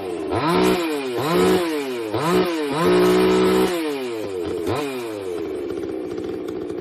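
NEOTEC 62cc two-stroke gas chainsaw revved in about five quick throttle blips, the engine pitch rising and falling each time, then dropping back to a steady idle near the end.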